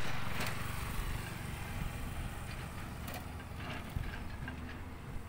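Steady low engine rumble of machinery or a vehicle at a distance, getting gradually quieter over the first couple of seconds.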